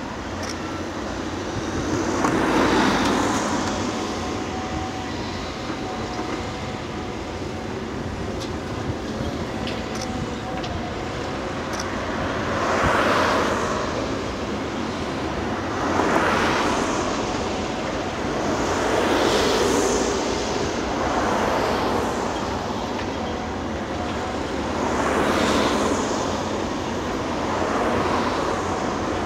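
Road traffic passing one vehicle after another, each a swell of tyre and engine noise that builds and fades over a couple of seconds, over a steady background hum.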